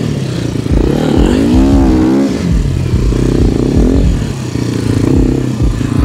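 Sharmax RX300 enduro motorcycle engine revving up and down repeatedly under load, in second gear, as the rider works the throttle through the dirt.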